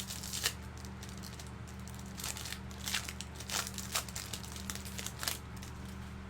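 Plastic wrapping on a trading-card box or pack crinkling and crackling as it is handled and torn open, in a run of short sharp crackles, over a steady low electrical hum.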